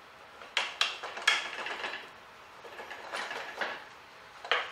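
Metal clicks, knocks and scraping as an alternator is worked into its mounting bracket on an engine and its bolts are fitted, ending with a sharp click.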